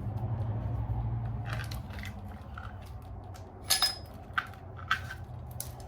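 Metal engine parts of a Suzuki LTR 450 clinking and knocking as the cylinder head is lifted off and the timing chain moved aside: a handful of short clinks, the loudest a sharp ringing one a little past the middle, over a steady low hum.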